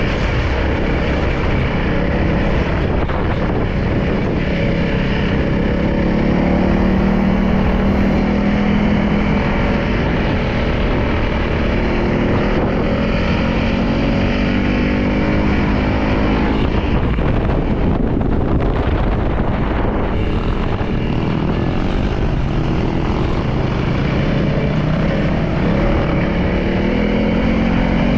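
Motorcycle engine running under way, its pitch climbing steadily for several seconds, dropping back, then climbing again about two-thirds of the way in, over a constant rushing noise.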